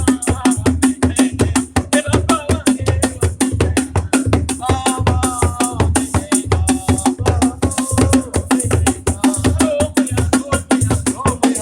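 Praise music with a steady, driving drum beat, a shaker and a melody over it.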